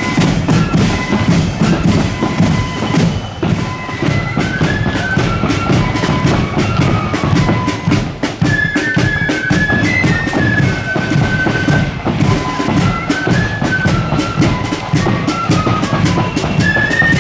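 A marching band plays: a shrill melody on wind instruments over a steady beat of snare and bass drums.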